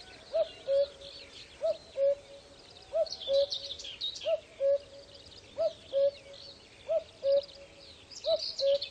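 Common cuckoo calling its two-note "cuck-oo", the first note higher than the second, seven times at an even pace of about one call every second and a half. Other small birds twitter high-pitched in the background.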